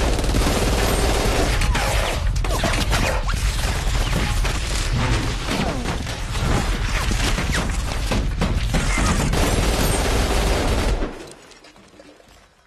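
Several automatic guns firing together in a long, dense, continuous fusillade, as film sound. The firing cuts off suddenly about eleven seconds in.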